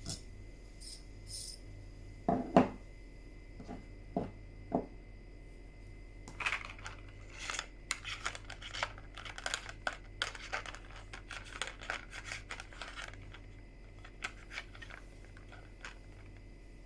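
Handling noise from small hard objects: two loud knocks a little over two seconds in, a few softer knocks, then a quick run of clicking and scraping from about six to thirteen seconds in.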